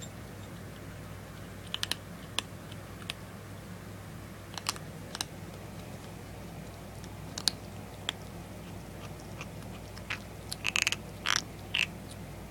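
A 6-week-old Persian kitten eating, with scattered short clicks and smacks of chewing and a quick run of louder short sounds near the end.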